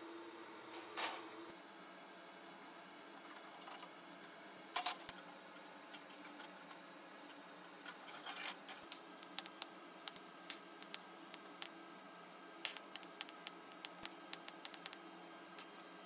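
Light metallic clinks, taps and scrapes of an expanded-steel mesh grate being handled, fitted into a steel can and laid on a steel welding table. The clicks come irregularly, a few louder knocks and then a quick run of small ticks near the end, over a faint steady hum.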